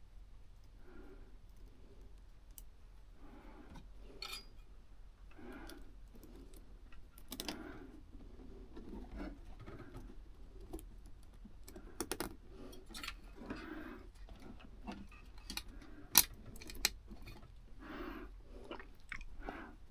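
Hands working on wiring and grounding hardware, making small metallic clicks, rattles and rustling, irregular and quiet. A few sharper clicks come about twelve seconds in, and the loudest about sixteen seconds in.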